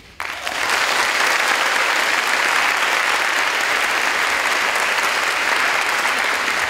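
A large audience applauding, breaking out sharply just after the start and holding steady.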